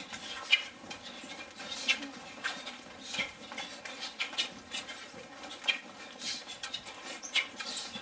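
A group of taekwon-do practitioners kicking as fast as they can: a rapid, irregular run of swishes and snaps of their cotton uniforms, mixed with bare feet slapping and shuffling on the floor.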